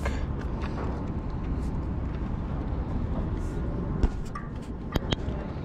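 Steady low outdoor rumble, with a few sharp clicks about four and five seconds in.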